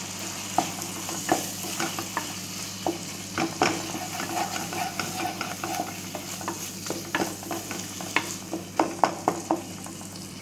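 Wooden spatula stirring chopped tomatoes into a frying masala in a nonstick pan: a steady sizzle with irregular scrapes and taps of the spatula against the pan, over a steady low hum.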